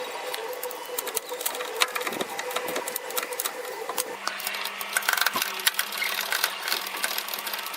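A ratchet clicking rapidly and continuously as the ball joint nuts on the steering knuckle are run down, with a faint steady hum under it.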